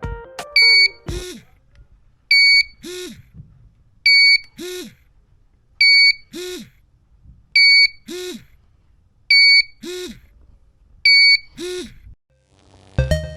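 GZAIR SA103 portable carbon monoxide detector sounding its alarm: seven loud, short high beeps, about one every second and three quarters, each followed by a brief buzz that rises and falls in pitch. The alarm is set off by carbon monoxide in the car's exhaust.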